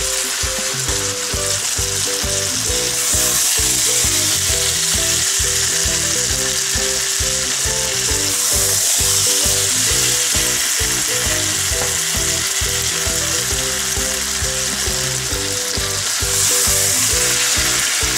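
Meat kababs sizzling steadily as they fry in onion-tomato masala in a nonstick pan over medium heat, while a wooden spatula stirs and scrapes through them. The sizzle swells louder for several seconds about three seconds in, and again near the end.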